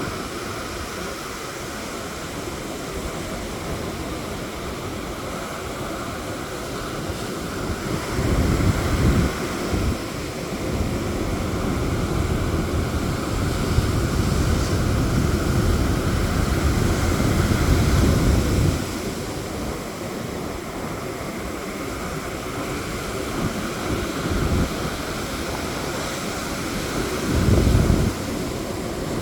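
Sea surf washing onto a sandy beach in a steady rush of noise. Louder low rumbling surges come about a quarter of the way in, through the middle, and again near the end.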